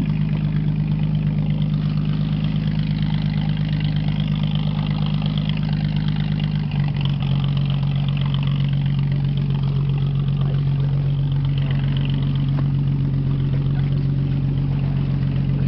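Motor launch's engine running steadily, dropping a step lower in pitch about seven seconds in.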